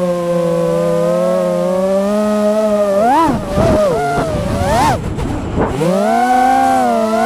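FPV quadcopter's brushless motors and propellers whining at a steady pitch, then swinging sharply up and down in pitch from about three seconds in as the throttle is punched and chopped. Around five seconds the whine drops low, throttle briefly cut, before climbing back to a steady pitch.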